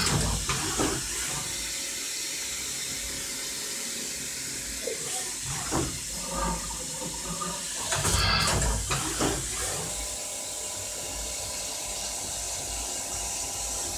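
CNC machine cutting a plastic part: a steady hissing rush with a few clunks, the loudest cluster about eight seconds in, and a steady whine setting in about ten seconds in.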